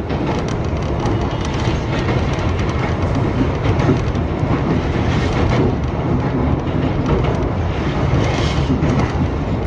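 Iga Railway electric train car, a former Tokyu car, running along the line, heard from inside the car: a steady rumble of wheels on rail with scattered clacks as the wheels pass over rail joints.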